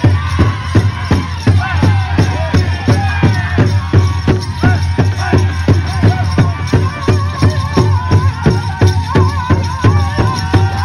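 Powwow drum and singers: a large drum struck in a steady, even beat of about four strikes a second, with high-pitched voices singing over it.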